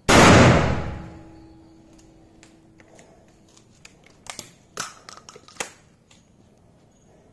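A single shot from a 12-bore double-barrel shotgun loaded with a 17 mm steel ball: one sudden loud blast right at the start that dies away over about a second and a half. Several sharp clicks and knocks follow around four to six seconds in.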